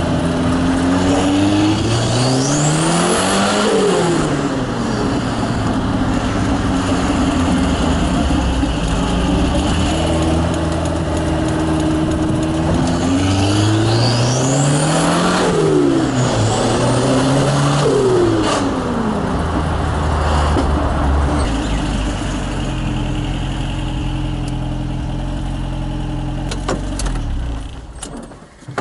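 Turbocharged Toyota 22R four-cylinder engine of a Hilux, heard from inside the cab, accelerating hard twice with the revs climbing and a high whistle rising with them. Each time it then drops back, and it settles to a steady run before falling quiet near the end.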